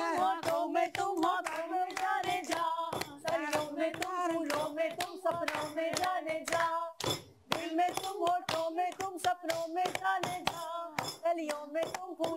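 Hand claps keeping a steady beat, about three a second, under a wordless sung tune held on long notes; both break off briefly about seven seconds in.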